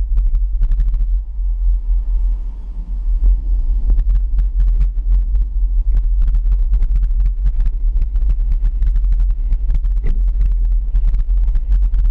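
Heavy low rumble of a vehicle driving, picked up by a camera mounted on its hood, with wind and vibration on the microphone and many small knocks and rattles. It eases briefly about two seconds in, then carries on steadily.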